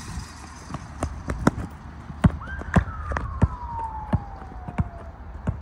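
A basketball being dribbled on the ground, bouncing about every half second to second. From about halfway, a long whistle-like tone slides slowly down in pitch for about two and a half seconds.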